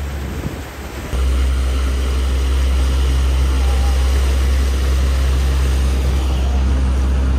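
Suzuki 140 outboard motor running steadily under way, a constant low drone, with water rushing from the wake. About a second in, the drone steps up louder and stays even.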